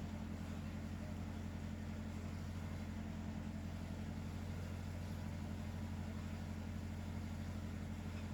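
A steady low hum that does not change, with no rhythm of breathing in it.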